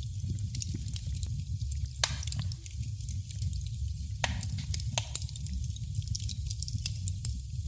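Wood fire crackling in a fireplace: irregular sharp pops and snaps over a steady low rumble, with louder pops about two and four seconds in.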